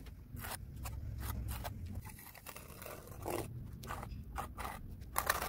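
Steel trowels scraping through wet cement tile adhesive as it is scooped and spread on a concrete slab. A run of short, gritty scrapes, with the loudest about three and a half seconds in and just before the end.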